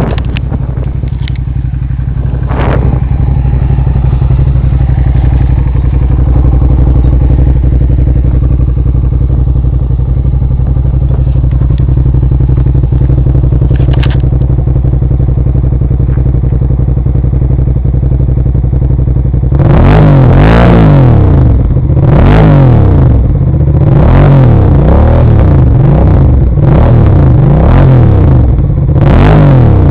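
Suzuki SV650's V-twin engine running steadily for about twenty seconds, then blipped through about six quick revs, each rising and falling back.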